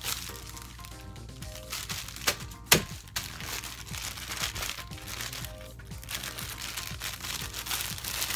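Clear plastic bag crinkling as the sponge squishy sealed inside it is squeezed and handled, with two sharp crackles about two and a half seconds in, over background music.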